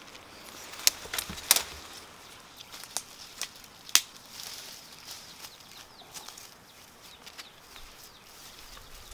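Footsteps through dry forest undergrowth, with leaves and branches rustling and a few sharp twig snaps, the loudest about a second and a half and four seconds in.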